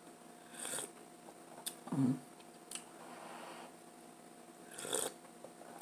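Close-miked sipping of hot coffee from a mug: two airy slurps, one about a second in and one near the end, with a short low mouth sound between them.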